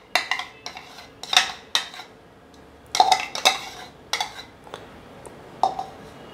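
Glassware clinking: a glass jar knocking and scraping against small glass bowls as a thick liquid is poured and scraped out of it. The clinks come in small clusters about a second in, around three seconds in, and once more near the end.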